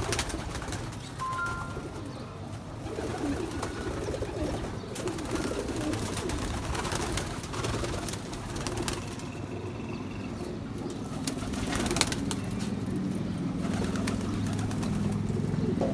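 Domestic pigeons cooing in a breeding loft, a low pulsing murmur that swells in the second half, with a few sharp clicks or knocks.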